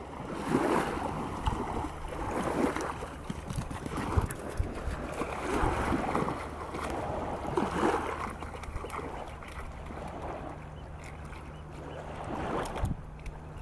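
Shallow seawater splashing and lapping, rising and falling in irregular swells every second or two over a low steady hum.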